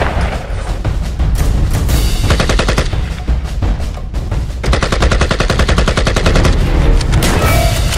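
Dubbed-in automatic gunfire sound effects in rapid bursts, laid over dramatic background music with a heavy bass.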